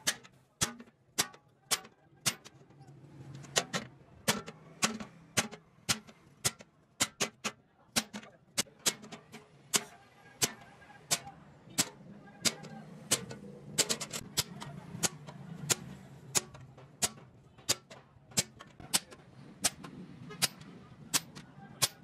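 Hammer striking a handled chisel that is cutting through an iron sheet: sharp metallic blows at about two a second, with a few short pauses.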